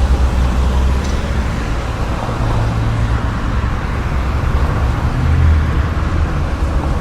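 City street traffic at night: cars and buses driving by with a steady low engine rumble and tyre noise, a heavier vehicle swelling past about five seconds in.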